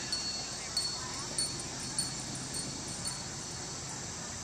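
Insects chirping outdoors: a steady high-pitched chorus, with a sharper short chirp repeating about every half second that fades out about three seconds in.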